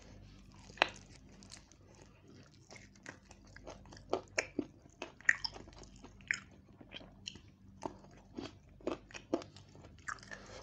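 Close-up mouth sounds of a person eating chicken and rice: chewing and wet smacking in irregular sharp clicks. A faint steady hum underneath.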